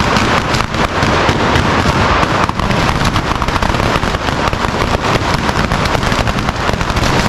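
Fireworks and firecrackers going off in a burning falla monument: a dense, unbroken crackle of many small sharp bangs.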